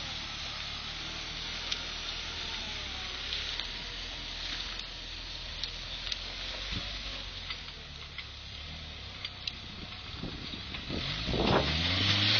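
Off-road trials 4x4's engine running low and steady, with scattered sharp clicks and crackles; about eleven seconds in it revs up and gets louder.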